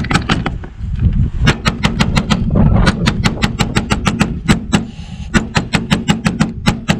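A Cold Steel SR1 tanto-point pocket knife stabbed rapidly, again and again, through a car's sheet-metal hood. It makes a fast run of sharp metallic punches, about four or five a second, broken by two short pauses.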